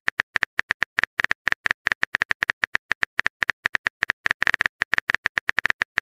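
Keyboard typing sound effect from a texting-story app: a rapid, uneven run of short clicks, about ten a second, as a chat message is typed out.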